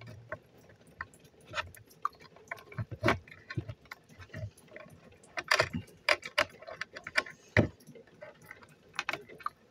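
Irregular clicks and light taps of small hard parts being handled on a workbench, with a few louder knocks in the middle and near the end.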